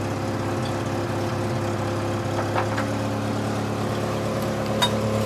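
A vehicle engine idling steadily, with a few faint knocks about halfway through and near the end.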